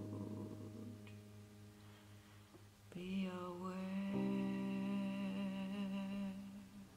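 Closing bars of a song: a held keyboard chord dies away, then about three seconds in a voice hums a long note with a wavering dip in pitch. A sustained keyboard chord comes in under it, and both fade out near the end.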